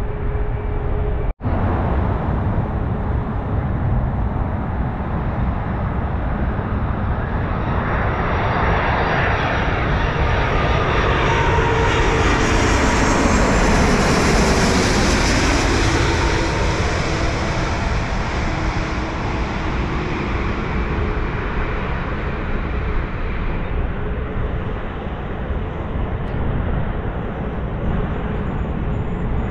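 Twin-engine jet airliner on final approach passing low overhead. The jet noise swells over several seconds, peaks as the plane crosses overhead with the engine whine dropping in pitch, then fades away.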